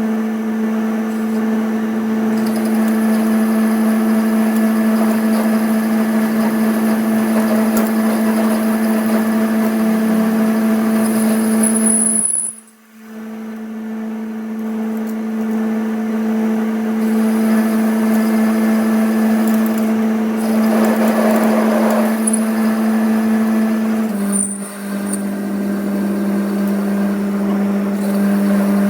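A workshop machine's motor running with a steady hum. It breaks off briefly twice, and after the second break it is a little lower in pitch.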